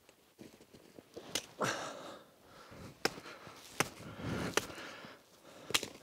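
Hatchet chopping a dry branch: about five sharp, separate strikes, with two longer crunching rustles between them, the first the loudest sound here.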